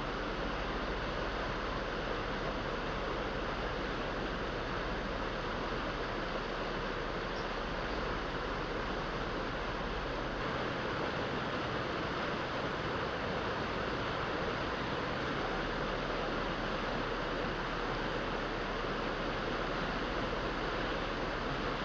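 Steady rushing of fast-flowing water, an even unbroken noise.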